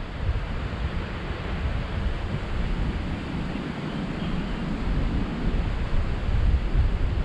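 Wind buffeting the microphone: a gusty low rumble over a steady rushing noise.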